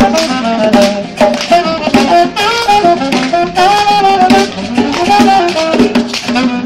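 Upbeat dance music playing loudly: a melody line over a steady drum beat.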